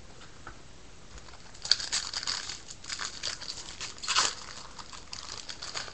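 Foil wrapper of a Bowman Jumbo baseball card pack being torn open and crinkled. It starts about a second and a half in as a dense, irregular crackling, with its sharpest crackle about four seconds in.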